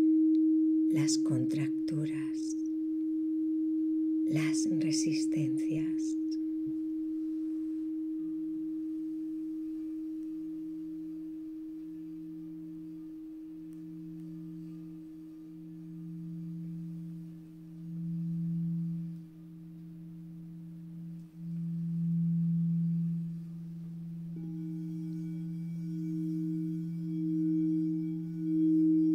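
Sustained singing-bowl tones: a steady hum, joined by a lower tone that swells and fades in slow pulses about every one and a half to two seconds, growing louder. Near the end the higher tone starts to pulse as well and bright ringing overtones come in above it.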